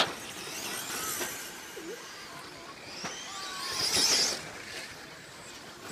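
Electric 1/10-scale RC stadium trucks racing on a dirt track: a sharp knock right at the start, then the high whine of the motors and gears, which rises and is loudest as a truck passes about four seconds in.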